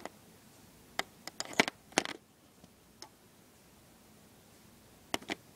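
Handling noise: light clicks and taps as a plastic Lego minifigure is held and turned close to the microphone, a cluster of them from about one to two seconds in, one near three seconds and two just before the end, over quiet room tone.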